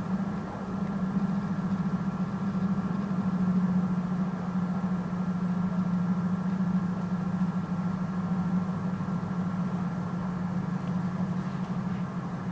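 Tohoku Shinkansen Hayabusa train running, heard from inside the passenger cabin: a steady low drone with a thin high tone above it.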